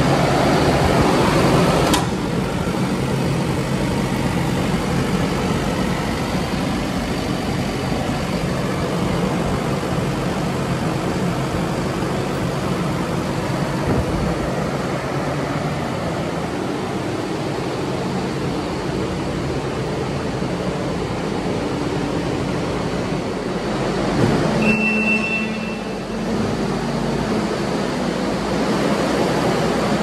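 Kubota SVL95-2S track loader's four-cylinder turbo diesel engine running steadily with the engine hood open. About 25 s in the sound briefly changes and a short high tone rises above it.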